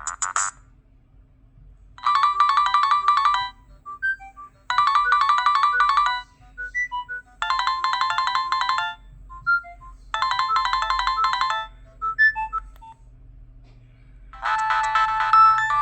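Nokia 6010 mobile phone playing a preloaded ringtone: a short phrase of rapid electronic notes repeated four times, about every two and a half seconds, with scattered faint notes between. Near the end, a different ringtone begins.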